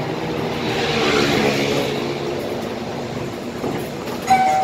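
Scania K320IA articulated bus running along the road, heard from the driver's cab: a steady engine hum with road and body noise. About four seconds in, a steady electronic tone begins.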